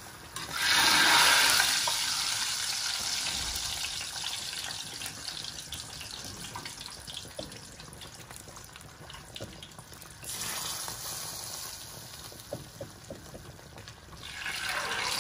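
Sizzling and sputtering as hot fried potatoes are moved into a pot of chicken curry. A hiss with fine crackles starts abruptly about half a second in and fades over a few seconds, with fresh bursts about ten seconds in and near the end, and scattered small crackles in between.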